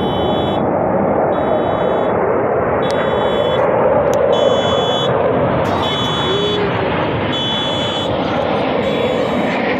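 Military jets flying over the bay: a loud, steady jet noise that swells slightly midway. A high electronic beep repeats about once a second over it.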